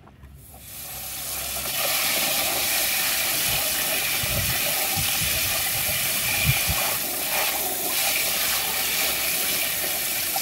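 Jet of water from a handheld spray gun hissing steadily as it blasts mud off a plastic toy crocodile over a plastic tub. The spray builds up over the first second or two, then holds level.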